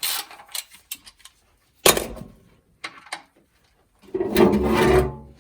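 Ratchet wrench on the engine's oil-pan drain plug: a few sharp metallic clicks and knocks as the plug is broken loose. About four seconds in comes a longer sound with a low hum and a pitched tone.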